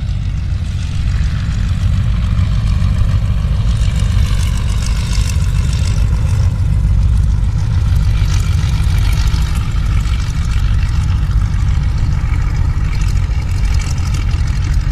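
Boeing Stearman biplane's radial engine running steadily at low taxi power, propeller turning, growing a little louder about a second in as the plane taxis closer.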